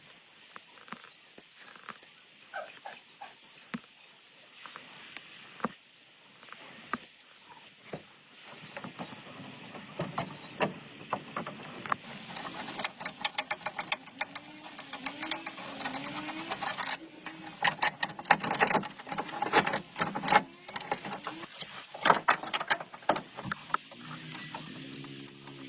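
Irregular clicking, tapping and metallic clinking of hand-tool work on metal parts, sparse at first and much busier from about ten seconds in.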